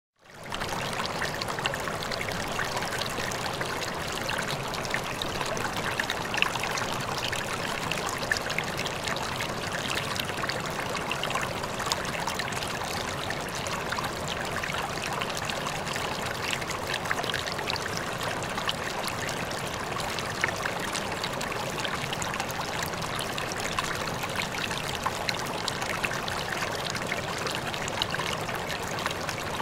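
Steady sound of running water, like a flowing stream, with fine splashy crackles throughout. It fades in at the start and then holds an even level.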